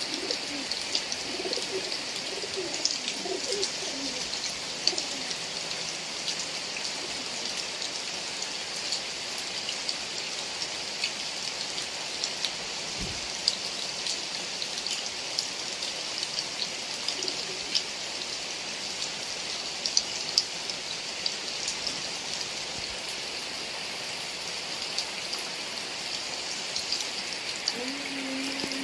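Heavy rain falling steadily, a dense patter of individual drops. Faint low cooing calls sound in the first few seconds and again about halfway through.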